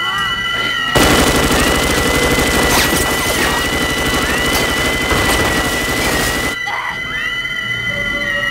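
Automatic gunfire: one long, rapid burst of shots that starts about a second in and cuts off suddenly about two seconds before the end.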